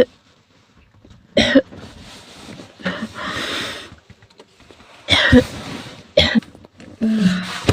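A woman snoring in her sleep: short loud snorts, one about a second and a half in and three more close together in the last three seconds, with a softer hissing breath between them.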